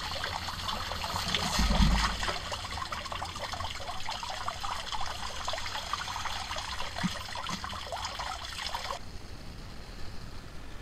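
Shallow runoff water trickling and splashing at a street storm drain grate, a dense crackle of small drips and splashes. It stops abruptly about nine seconds in, leaving a quieter outdoor background.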